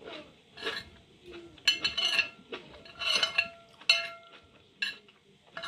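Metal spoon scraping and clinking against a ceramic plate while scooping rice, five or six times, some strikes leaving the plate ringing briefly.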